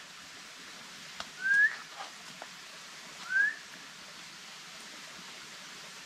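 Two short rising whistled notes, about two seconds apart, with a few faint clicks between them.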